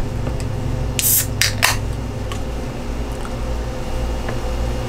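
ZOA energy drink can being handled and cracked open: a few sharp clicks with a short hiss about a second in, over a steady low hum.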